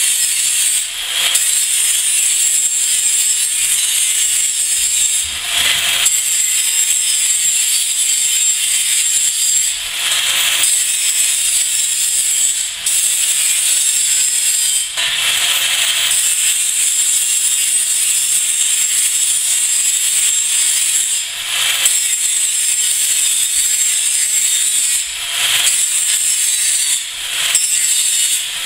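Angle grinder grinding the edge of a rolled steel wheel band: a steady, high-pitched grinding hiss of disc on steel, broken by brief dips every few seconds as the disc comes off the metal.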